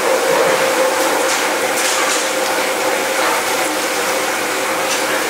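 Steady machinery noise in a fish-processing workroom, with a constant hum and a few brief high scrapes.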